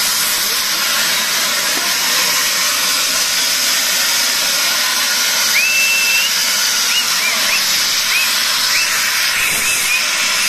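Handheld CO2 jet gun blasting white plumes of gas, a loud steady hiss, with a few short whistles about halfway through.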